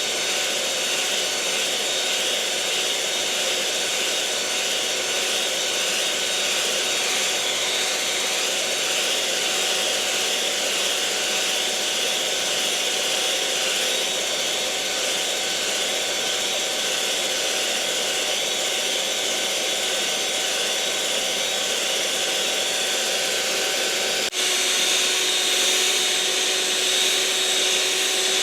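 Electric mixer motor running steadily, a whirring hum with a high whine above it. About 24 seconds in, the sound breaks for an instant and resumes slightly louder, with its tone shifted.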